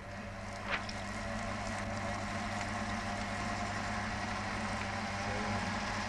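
Spin dryer with its outer casing removed, running: its electric motor gives a steady hum as it spins the drum, over a hiss of water being flung out through the slits in the drum. The sound builds a little in the first second as the drum comes up to speed, then holds steady.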